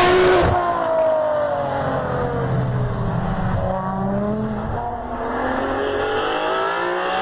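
Ferrari 599 GTO's V12 engine at speed on a circuit: loudest right at the start, its revs fall for about three seconds as it slows, then climb steadily again under acceleration.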